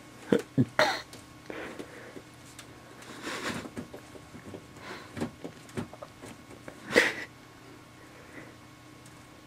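Empty plastic water bottles being knocked about and crinkled by a playing ferret. It comes as irregular knocks, rustles and crackles, a quick cluster in the first second and the loudest crunch about seven seconds in.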